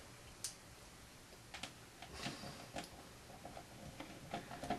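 Faint, scattered light clicks and taps, a handful of them spread a second or so apart.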